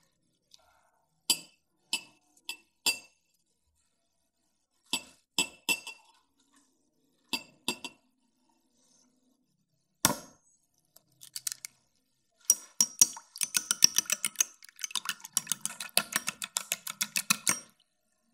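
A knife slicing silken tofu gives several sharp clinks on a ceramic plate, in small groups. About ten seconds in, an egg is cracked on the rim of a glass bowl. Then beaten eggs are whisked briskly, with rapid clinking against the glass bowl for about five seconds.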